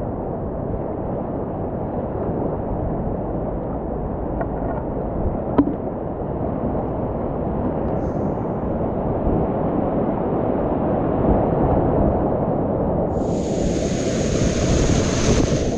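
Whitewater rapids rushing steadily around a kayak, a dull, low-heavy roar of moving water. A single sharp knock comes about five and a half seconds in, and from about thirteen seconds a brighter hissing wash of spray rises over it.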